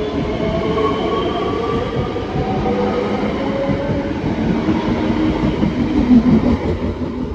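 ScotRail Class 385 electric multiple unit pulling away past at close range: its traction motors whine in several tones that rise slowly as it gathers speed, over the rumble of its wheels on the rails, loudest about six seconds in.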